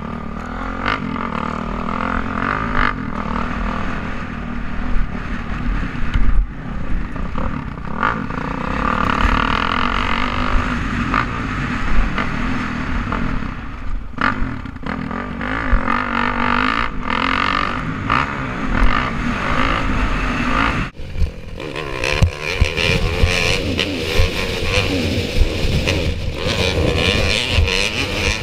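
Dirt bike engine revving up and down as it is ridden around a motocross track, heard through an on-board camera with wind noise and frequent knocks over bumps. The sound drops briefly and changes abruptly about three-quarters of the way through.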